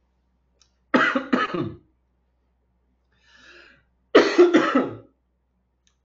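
A man coughing: two short bouts of two coughs each, about a second in and again about four seconds in, the second bout louder.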